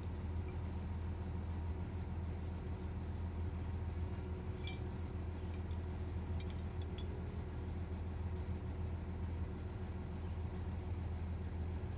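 Steady low hum of an idling engine, with a couple of faint metallic clinks near the middle as the chain and shackle are handled on the steel gear shaft.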